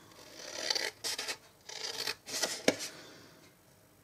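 Scissors cutting into cardstock, a few short snips in the first three seconds.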